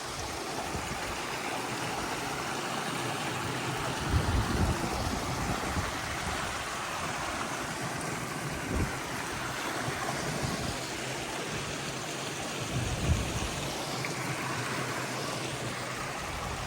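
Stream water running and babbling steadily, with a couple of brief low thumps about four and thirteen seconds in.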